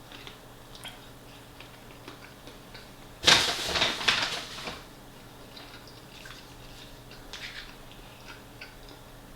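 Close-up eating sounds from a person eating fried chicken: scattered soft mouth clicks and chewing, with one louder noisy crunch or rustle lasting about a second and a half, about three seconds in.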